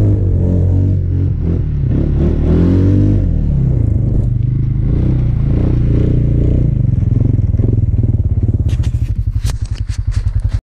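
Snowmobile engine running and revving as it drives through snow, its pitch rising and falling. Near the end it drops to a slow, pulsing idle, with a few sharp clicks.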